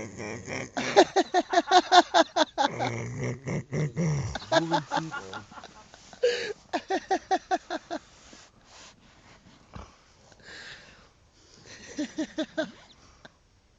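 A man snoring loudly, his breaths breaking into runs of short rapid pulses, about six a second. The longest run comes about a second in, with shorter runs after, and it goes quieter near the end.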